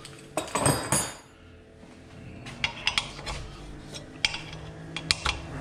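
A steel hex key clinking and scraping against an oxygen-sensor bung plug and the rusty exhaust downpipe as the plug is screwed in and tightened. A quick cluster of metallic clinks comes about half a second in, then scattered single clicks.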